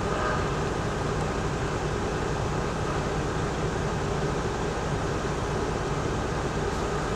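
Steady diesel engine rumble of idling semi-trucks, heard from inside a truck cab.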